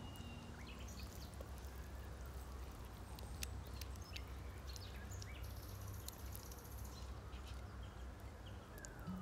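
Faint outdoor ambience: birds chirping here and there over a low, steady rumble.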